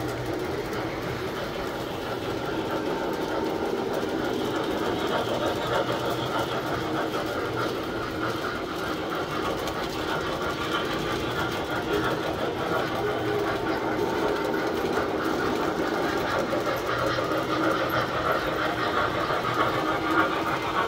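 Tinplate model trains running on metal track: a steady whir of electric motors and gearing with the fast clatter of wheels over rail joints.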